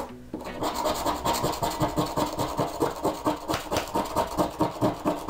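Metal scraper rasping across a magnesium fire-starter block in quick, even back-and-forth strokes, several a second, scraping off the block's black coating.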